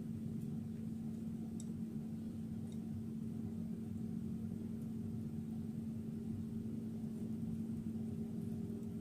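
Steady low hum with a constant pitch, with a few faint clicks in the first three seconds.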